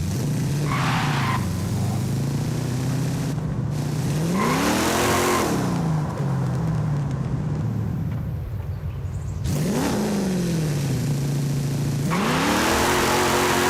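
1968 Dodge Dart Hemi Super Stock's 426 Hemi V8 idling, blipped twice so that the revs rise and fall back, then revved up about 12 seconds in and held at higher revs.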